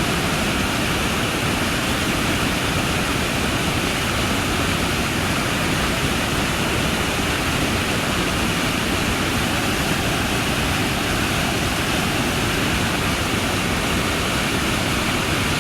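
Waterfall with a steady, loud roar of falling water and no breaks.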